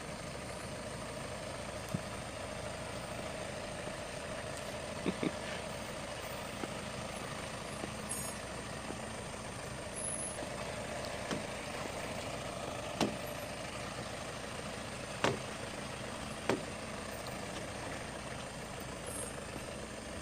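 A heavy vehicle's engine running steadily, with a few short sharp knocks scattered through it.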